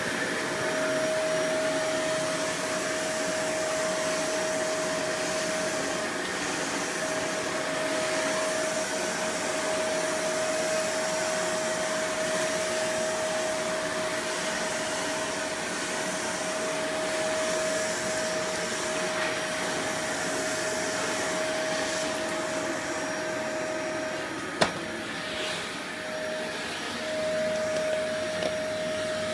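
Vacuum cleaner running steadily, a constant whine over its rushing airflow. About 24 seconds in there is a single sharp click, and the whine breaks off for a couple of seconds before it returns.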